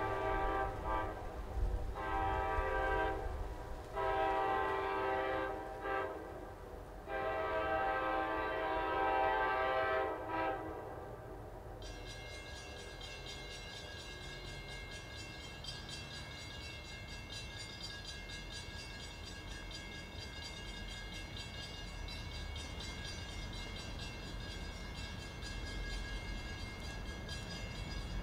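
Diesel locomotive's multi-chime air horn blowing a series of blasts, the last and longest ending about ten seconds in. After that there is a steady high-pitched sound over a low rumble as the train approaches, growing a little louder near the end.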